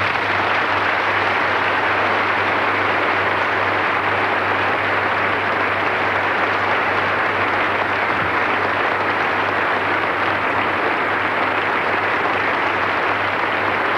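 Audience applauding steadily, a dense, even clapping with a low steady hum underneath.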